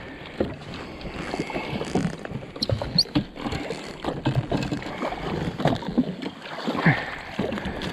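Water slapping and sloshing against the hull of a drifting jet ski, with irregular knocks and clicks from a landing net, rod and a small kingfish being handled at the side for release.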